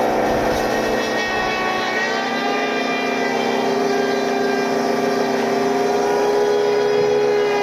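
Sawmill woodworking machine running steadily, with a pitched motor hum whose pitch sags briefly about a second in, as if under load from a cut, and then slowly recovers.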